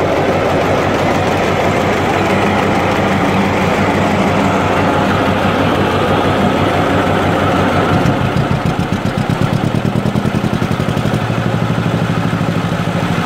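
Old tractor engine idling. About eight seconds in the running turns uneven, with separate firing beats, then settles into an even idle.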